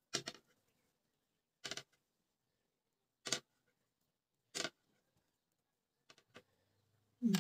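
Steel knitting needles clicking as stitches are worked: a handful of short, sharp clicks spaced a second or more apart, with silence between them.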